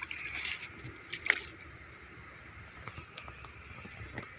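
Shallow water sloshing and splashing faintly, with scattered small clicks and one sharper tap about a second in.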